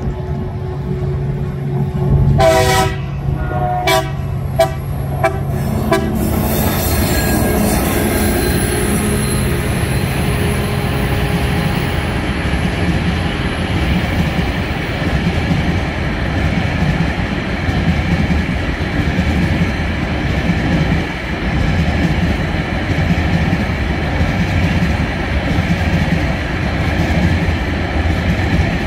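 TasRail TR-class diesel locomotive passing under load up a grade, its horn sounding a longer blast about two seconds in and then several short toots, over a low engine drone. After that, the empty cement hopper wagons roll past with a steady clattering of wheels on the rails and a faint high wheel squeal.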